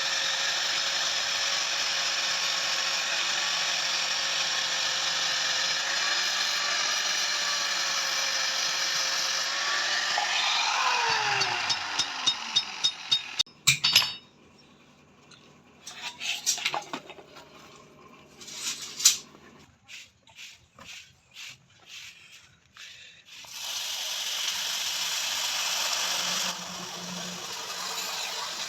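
An electric power tool running steadily, then switched off about ten seconds in, its motor winding down in pitch. A series of sharp taps and scattered metal clinks follows, and a steady noise starts up again near the end.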